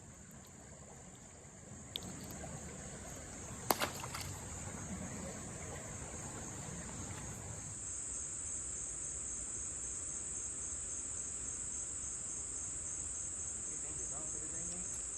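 Insects calling in a steady high-pitched drone, which grows louder about eight seconds in. There are a couple of sharp clicks in the first four seconds.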